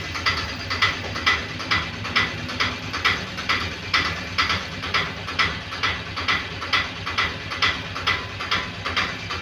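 Steady, rhythmic mechanical ticking, about two and a half sharp clicks a second, keeping an even beat.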